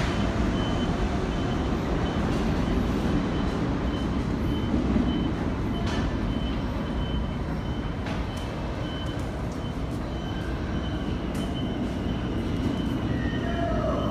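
New York City subway train approaching through the tunnel into the station, a steady low rumble with a faint high beep repeating about once a second. Near the end a gliding whine from the train comes in as it nears the platform.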